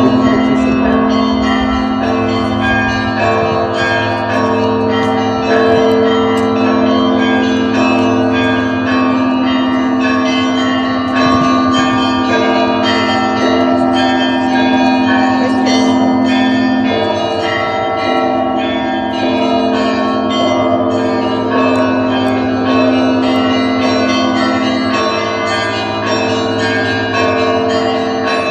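Russian Orthodox monastery bells ringing together, many bells of different pitches struck in quick succession so the strokes overlap into a continuous peal over the hum of a deep bell.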